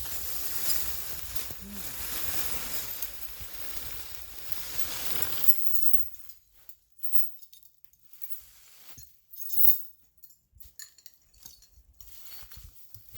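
A felled tree coming down just after the chainsaw stops: a rushing sweep of branches for about six seconds, then scattered cracks and snaps of limbs breaking and settling, with one louder crack near the end.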